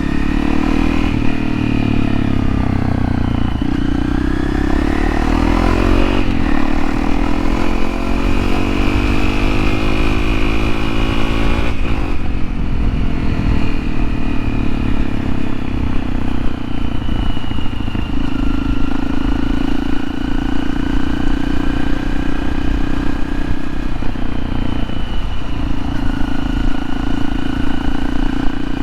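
2013 Honda CRF250L's single-cylinder 250 cc engine running while the bike is ridden, its pitch climbing and falling with the throttle.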